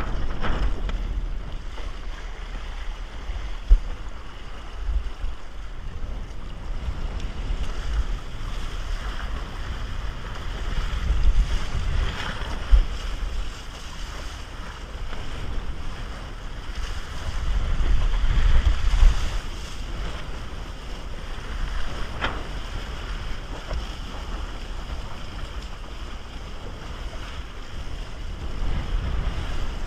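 Wind buffeting the microphone over water rushing and splashing past a windsurf raceboard under sail in choppy water. The noise swells twice, about a third of the way in and again past the middle, with a couple of sharp knocks from the board hitting chop.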